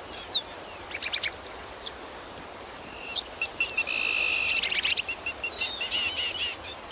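Nature ambience of insects trilling steadily, with many short high chirping calls over it.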